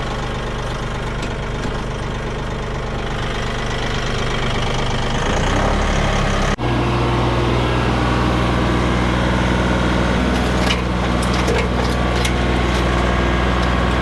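Massey Ferguson tractor engine driving a PTO-powered Woodland Mills WC68 wood chipper, running steadily and then rising in speed about five seconds in to hold at a higher, louder pitch as it is throttled up to working speed.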